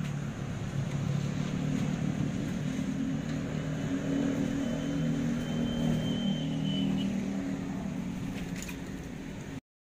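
A motor vehicle's engine running close by, building up in the first second, holding steady, then fading toward the end. A faint thin high whistle sounds through the middle.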